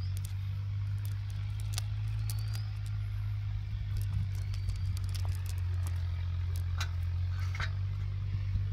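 A steady low hum runs throughout, under light rustling and scattered clicks of a nylon cast net being handled as fish are picked out of it.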